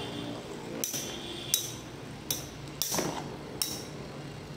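Two metal Beyblade tops spin in a plastic stadium with a faint steady whir. They clash with sharp metallic clinks about six times, spaced evenly under a second apart.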